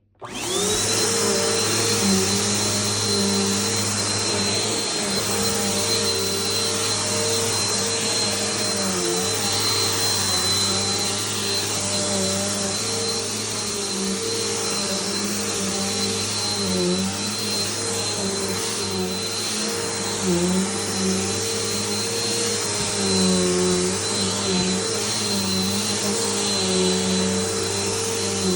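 Bissell PowerForce bagged upright vacuum switching on, its motor whine rising to speed within half a second. It then runs steadily while vacuuming, its hum dipping briefly a few times as the load changes.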